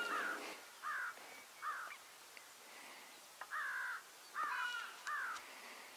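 Crows cawing: six harsh caws in two groups of three, with a pause of about a second and a half between the groups.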